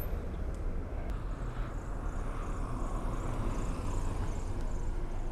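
Steady low rumble of slow car traffic on a road.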